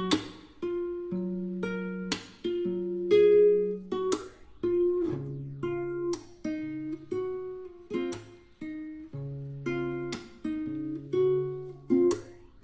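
Background music on acoustic guitar, a slow gentle pattern of plucked chords struck about once a second over low bass notes.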